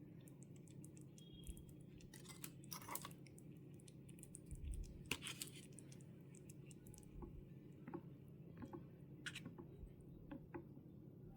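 Light scattered clicks, taps and crunchy handling sounds of miniature cooking utensils and food being worked, over a steady low hum.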